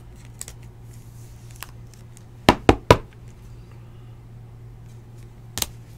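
Knocks from handling a trading card in a rigid plastic top loader: three quick sharp knocks about halfway through and one more near the end, over a steady low hum.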